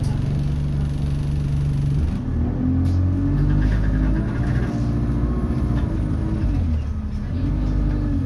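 Enviro200 Dart single-decker bus's engine heard from inside the passenger cabin: a steady low hum for about two seconds, then the engine note rising and falling in pitch as the bus accelerates, with a second rise near the end.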